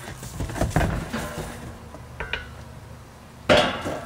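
Knocks and clattering of gear being handled, then a loud metal clank with a short ringing tail about three and a half seconds in as the stainless steel brew pot is taken by its handles. A faint low hum runs underneath.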